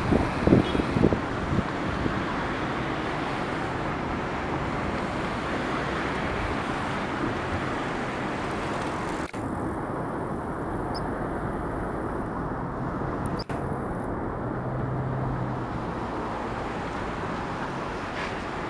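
Steady hum of distant road traffic picked up by a compact camera's built-in microphone, with two brief dropouts about nine and thirteen seconds in.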